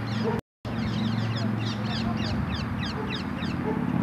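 A flock of birds in the trees chattering, with many short, quick falling chirps overlapping, over a steady low hum. The sound cuts out completely for a moment about half a second in.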